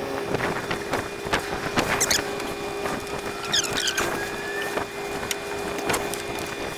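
A steady engine hum, with scattered knocks and a few short high squeaks over it.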